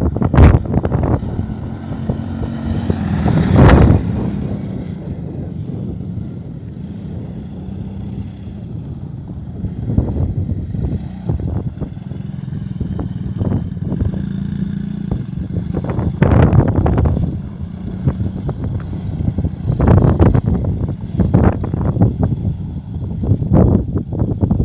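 An old ATV's engine running at a steady idle, with several brief louder surges, the biggest about three to four seconds in and more around two-thirds of the way through and near the end.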